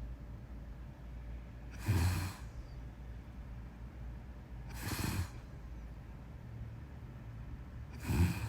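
A person snoring in deep sleep: three short snoring breaths, about three seconds apart, each with a low buzzing tone.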